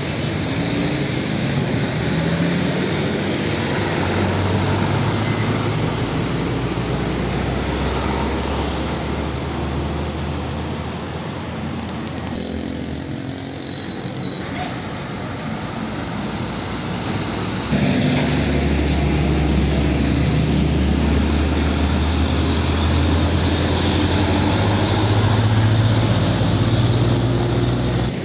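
Heavy diesel trucks, a Nissan Diesel (UD) container tractor among them, driving past in street traffic with a steady engine drone. A louder, deeper engine drone starts suddenly about eighteen seconds in.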